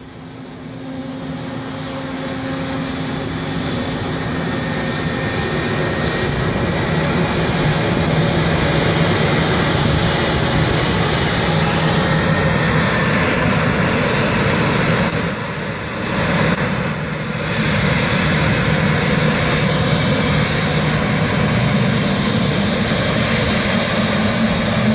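Boeing 787 Dreamliner's twin jet engines spooling up to takeoff thrust. Over the first several seconds the sound builds into a loud, steady jet roar with a low drone running through it as the airliner begins its takeoff roll.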